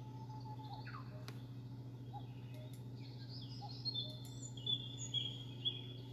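Wild birds chirping and whistling, with a few louder short calls in the second half, over a steady low hum.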